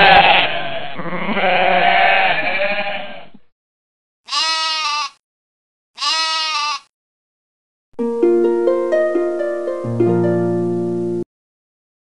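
Livestock bleating, several wavering calls overlapping for about three seconds, then two single short bleats about two seconds apart. A short music jingle of a few steady notes follows, with a bass note coming in near the end.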